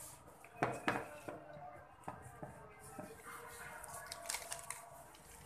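Kitchenware being handled: a pair of sharp knocks and clinks about a second in, then scattered lighter clicks.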